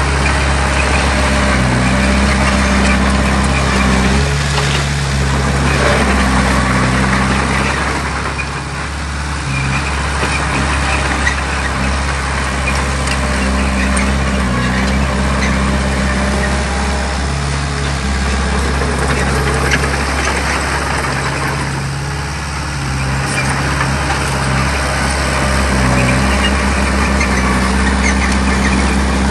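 Heavy diesel engine of an earthmoving machine running steadily under load, a constant low engine hum with a rough clattering noise over it. The level dips briefly twice.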